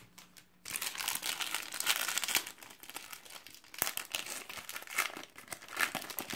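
Foil wrapper of a Panini Select Soccer trading-card pack being crinkled and torn open by hand: a dense crackling that starts about a second in and comes in uneven surges.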